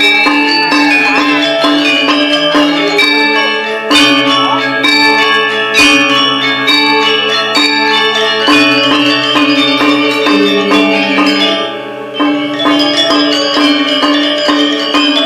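Balinese gamelan ensemble playing a tabuh kreasi: bronze metallophones ringing in fast, dense interlocking patterns. Sharp full-ensemble accents land about four and six seconds in, and the music briefly drops in loudness near twelve seconds before the whole ensemble comes back in.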